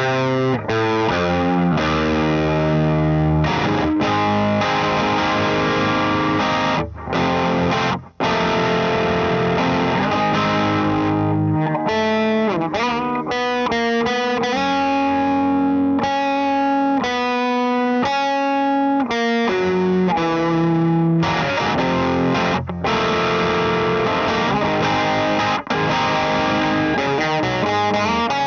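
Electric guitar played through an LPD Pedals Sixty8 Deluxe drive pedal into a Satellite Neutron tube amp: overdriven riffs and chords with a few brief stops between phrases.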